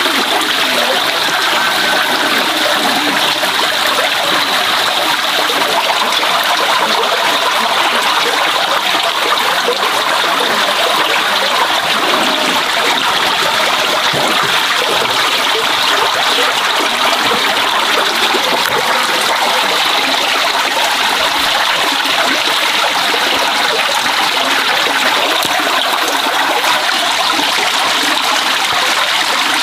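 Steady rushing of running water, like a stream, unbroken throughout.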